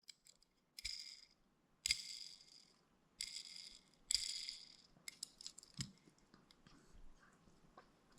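Handling noise from a small toy car or its packaging being turned in the hands: four short rattling scrapes in the first half, then a few faint clicks.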